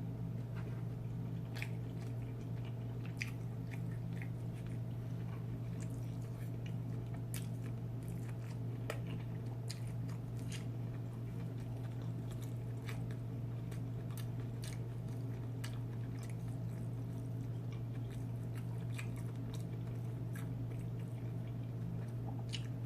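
Close-up chewing and mouth sounds of someone eating Chinese takeout, with scattered small clicks and smacks, over a steady low hum.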